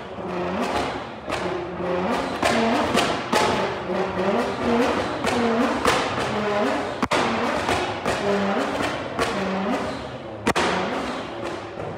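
Background music with a steady beat and a short melodic figure repeating about every second.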